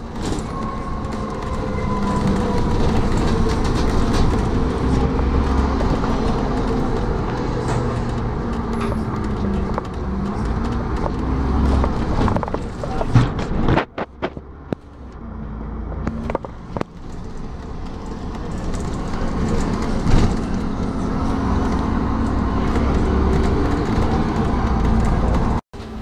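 An old double-decker bus's engine running while the bus is under way, heard from inside. Its pitch rises and falls as the bus speeds up and slows, and it eases off and goes quieter for a couple of seconds about halfway through.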